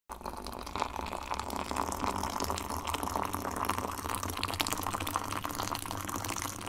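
Liquid splashing and dripping: a steady wet patter of many small clicks.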